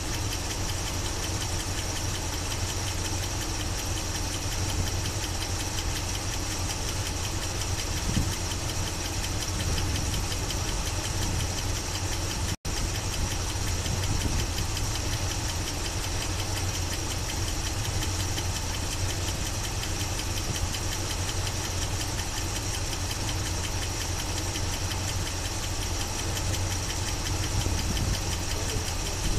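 1976 Chevy Blazer's carbureted engine idling steadily. The sound cuts out for an instant about twelve seconds in.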